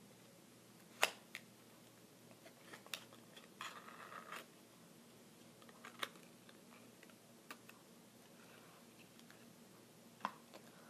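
Sparse ASMR tapping: about six separate sharp clicks and taps with pauses between them, the loudest about a second in, and a brief scratchy rustle around four seconds in.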